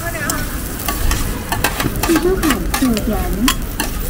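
Metal spatula and tongs scraping and clicking against a flat griddle pan in quick, irregular strokes while an egg and shredded-potato filling sizzles in oil. A voice rises and falls in the background partway through.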